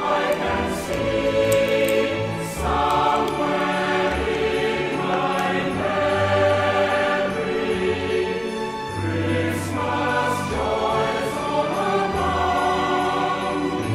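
Background music with sustained sung chords over a bass line that changes note every second or so.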